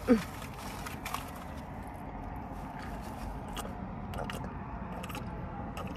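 Steady noise of passing road traffic coming in through an open car window, with a few faint mouth clicks from chewing and sipping a drink.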